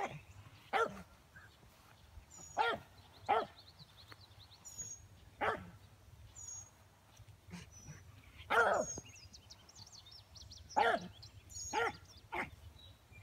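Rabbit hound baying in about nine short, separate barks at irregular spacing, one a little longer just past the middle. This is the hound giving voice while it runs a rabbit.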